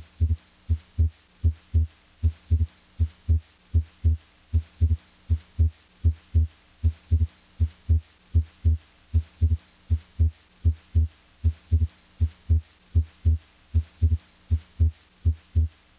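Human heart sounds heard through a stethoscope diaphragm over the pulmonic area. S1 and S2 come in regular, low lub-dub pairs while the patient breathes deeply. On inspiration S2 is meant to split into its aortic (A2) and pulmonic (P2) components, a normal physiologic split.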